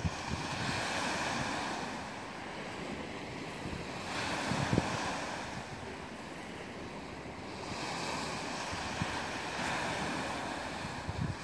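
Small sea waves breaking and washing up a pebble beach, the surf hiss swelling three times, with some wind buffeting the microphone.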